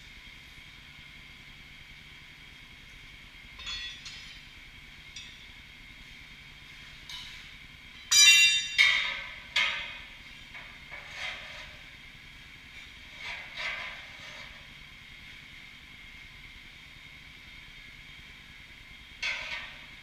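Several short bursts of compressed-air hissing during a tractor tyre job, the loudest about eight seconds in, over a steady machine hum.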